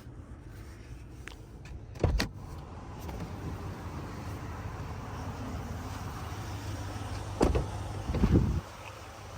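Cabin noise of a 2023 Ram 1500 Limited pickup on the move: a steady low road and drivetrain drone with tyre and wind hiss that grows a little louder about three seconds in. A sharp thump comes about two seconds in, and two heavier low thumps near the end.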